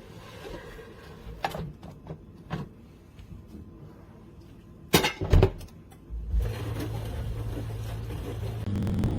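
A few light clicks and two loud knocks, like a countertop mini dishwasher's door or panel being handled. About a second and a half later its motor starts and runs with a steady low hum, which grows a little louder near the end.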